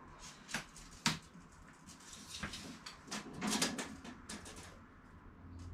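Steel tape measure drawn out and held along a wall, giving a few sharp clicks and light scrapes of the metal blade, with a quick run of clicks a little after the middle.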